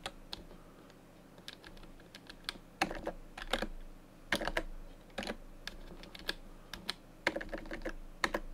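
Computer keyboard typing in short, irregular bursts of keystrokes with pauses between them, as a line of text is entered.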